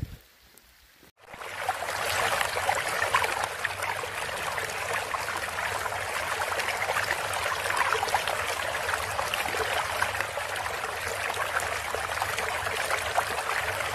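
A steady rushing, water-like noise, like a running stream, with a faint low hum beneath. It starts abruptly about a second in, at the cut to an animated logo outro, and holds evenly.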